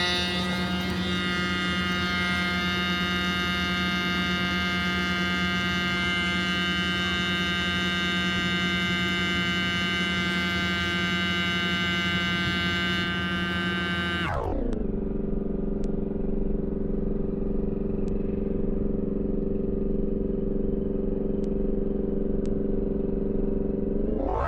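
A steady mechanical hum with one even pitch. About fourteen seconds in it drops sharply to a lower, duller hum, and it rises back to the first pitch near the end.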